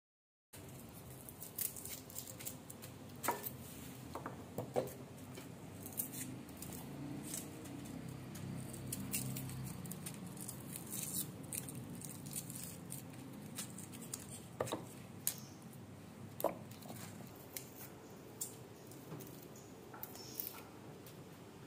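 Small knife nicking and peeling the dry papery skins off small red onions, with scattered sharp clicks and faint crackles over a steady low background noise.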